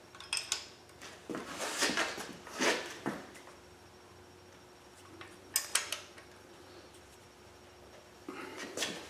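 Hand wrench turning the intake manifold bolts on a small-block Chevy 350 V8: bursts of short metallic clicks and clinks, with quiet pauses between, as the bolts are pulled up tight again after torquing.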